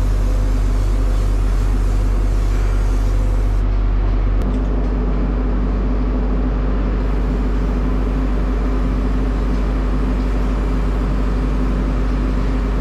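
Steady, loud, engine-like mechanical drone with a strong low hum and several steady tones, its pitch pattern shifting slightly about four seconds in.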